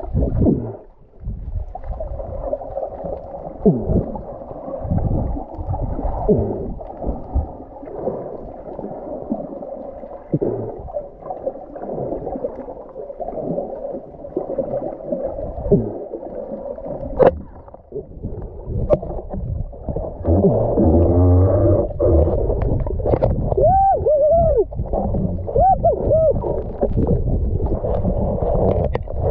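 Muffled underwater noise heard through a camera's waterproof housing: a dull water rush with gurgling and scattered sharp clicks. Near the end come a few short squeaky tones that rise and fall.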